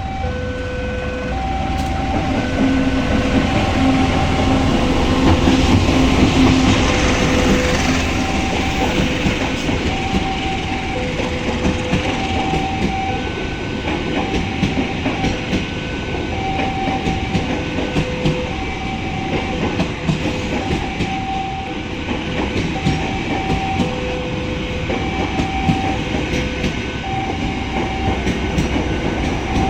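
A train passing over a level crossing, its wheels clattering over the rails with a loud rumble that swells in the first few seconds. Through it, the crossing's warning alarm keeps sounding a steady two-note chime, alternating a lower and a higher tone.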